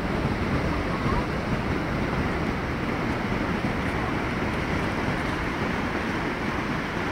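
Steady roar of heavy ocean surf breaking on the shore, with wind on the microphone.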